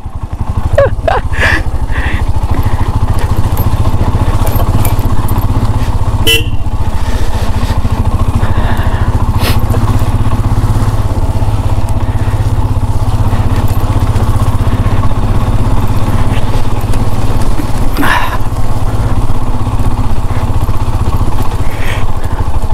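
Motorcycle engine running steadily at low speed on a rough dirt road, with two short sharp knocks, about six seconds in and again near eighteen seconds.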